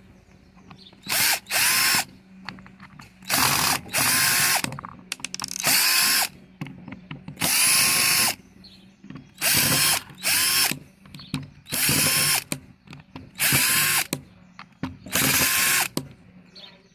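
Electric screwdriver run in about eleven short bursts, each spinning up quickly, as it backs the housing screws out of a cordless drill/driver.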